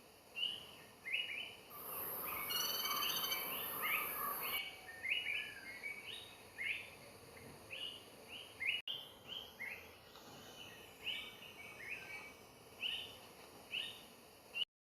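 Greater flameback woodpecker calling: a long series of short, sharp notes, two or three a second. About two seconds in, a louder hiss with a high buzzing tone joins for about three seconds. The sound cuts off just before the end.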